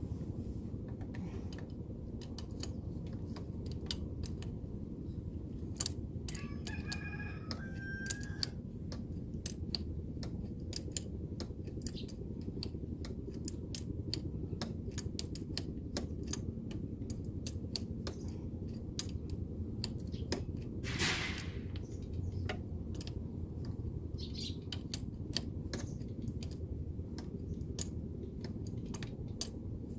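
Scattered sharp clicks and taps of tools and metal parts as a new packing seal is fitted into a power sprayer's pump to replace a worn one, over a steady low hum.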